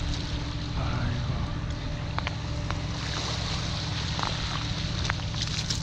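Wind buffeting the microphone over small waves lapping at a shell beach: a steady rush with a low rumble. A few faint clicks and ticks, most of them near the end.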